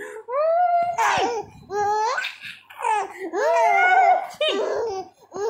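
A baby laughing: a string of high-pitched laughs and squeals, each swooping up and down in pitch, with short breaks between them.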